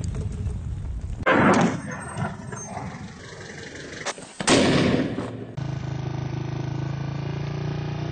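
Two loud blasts of heavy weapons fire, one about a second in and another about four and a half seconds in, each dying away with a rumbling echo. From about halfway a steady low drone takes over.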